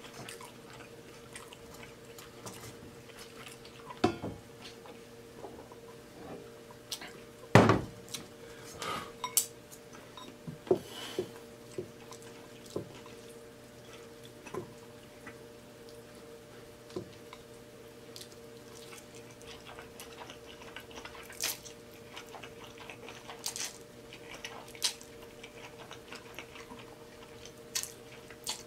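Wooden chopsticks clicking and knocking against a glass bowl while stirring and lifting black bean noodles, with eating sounds from the mouth. Scattered light clicks, the loudest knock about seven and a half seconds in.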